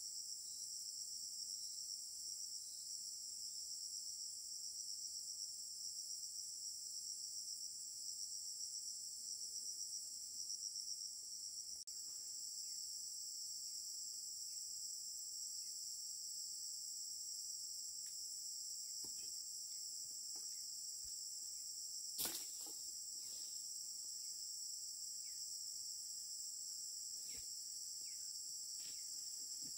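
Dense, steady high-pitched chorus of insects, with a single sharp click about 22 seconds in and a few faint light clicks in the second half.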